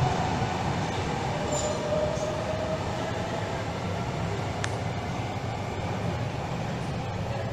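A train pulling away along an underground station platform, its running noise slowly fading as it recedes into the tunnel, with a faint whine in the first couple of seconds.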